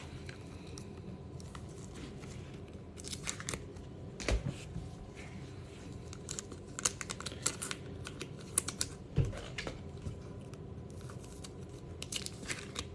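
Trading cards and their plastic wrappers and sleeves being handled: scattered crinkling, rustling and light clicks, with a couple of soft thumps on the table.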